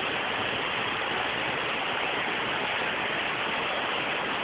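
Steady rush of water in a heavy rainstorm: rain falling and floodwater running over a flooded street.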